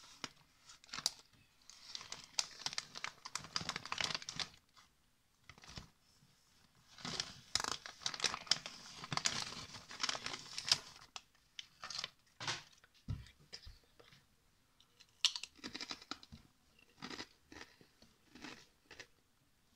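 Foil potato-chip bag crinkling and rustling in several bursts as it is handled, with crunching of chips being eaten and a low thump partway through.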